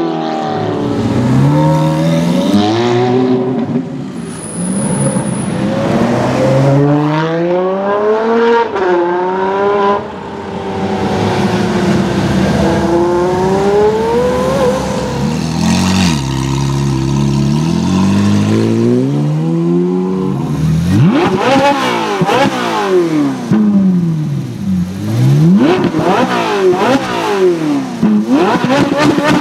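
Ferrari supercar engines at high revs: first hard acceleration, the engine pitch climbing and dropping back at each quick upshift. In the last third a stationary Ferrari 458 Italia's V8 is blipped about five times, its pitch shooting up and falling straight back each time.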